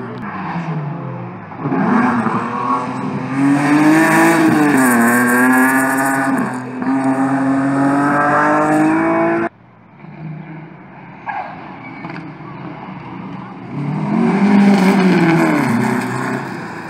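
Rally car engines racing on a tarmac sprint stage, revving up and down through gear changes. The engine sound cuts off suddenly about halfway through, then a car's engine rises and falls again near the end.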